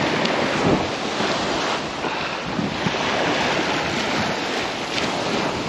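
Wind buffeting the microphone, with small waves breaking and washing up the beach.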